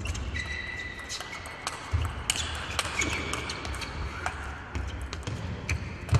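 Table tennis rally: the plastic ball clicking back and forth off the rackets and table in quick, irregular strikes. Short high squeaks of shoes on the sports floor are heard in the first half.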